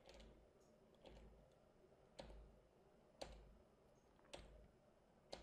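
Near silence with faint, even ticks about once a second.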